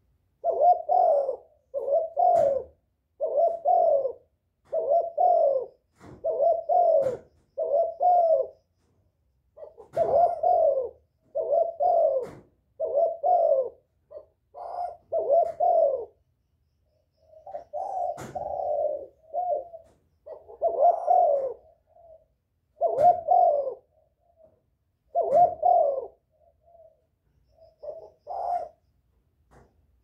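Caged decoy spotted dove cooing over and over: low hooting coos, mostly in groups of two or three, repeating every second or two with a couple of short pauses.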